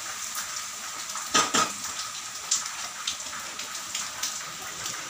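Kitchen clatter: metal dishes and utensils clinking and knocking several times, the loudest two knocks about a second and a half in, over a steady background hiss.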